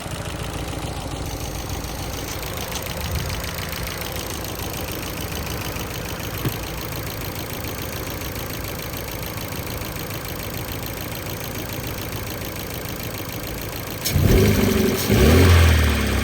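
2012 Ford Focus 1.6 petrol engine idling with a rapid, even ticking, which the owner reports together with vibration at idle and a loss of power. Two louder, deeper bursts come near the end.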